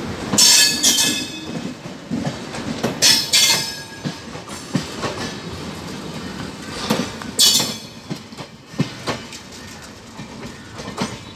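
Antyodaya passenger coaches rolling past and pulling away, wheels clacking over the rail joints. Three short, loud, high metallic wheel squeals come about half a second in, around three seconds and around seven seconds.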